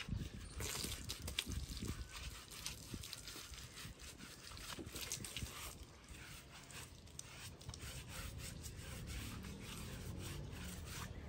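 Hands scrubbing soapy detergent lather into a wet cow's hide: an irregular run of wet rubbing strokes.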